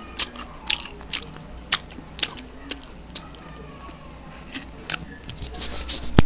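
Close-miked eating sounds: chewing noodles with wet mouth clicks about twice a second, then near the end a fork scraping and gathering rice noodles on a banana-leaf-lined plate, closing with two sharp clicks.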